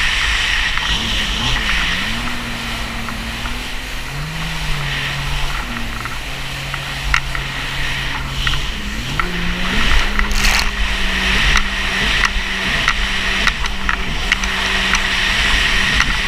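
Jet ski engine running under a rushing of wind and water, its pitch dropping about four seconds in and climbing again near nine seconds as the throttle changes.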